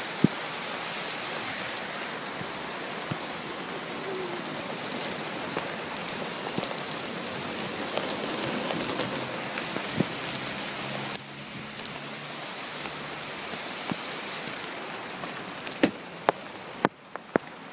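Heavy rain falling steadily, with the sharp taps of individual drops striking close by. It gets quieter about eleven seconds in and again near the end, just after a few louder drop hits.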